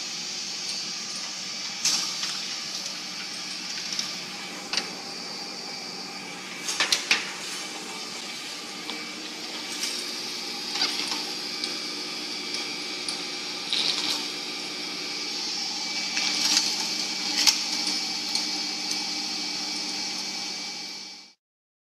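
A steady mechanical hum with a hissy edge, under scattered sharp clicks and knocks, cutting off suddenly near the end.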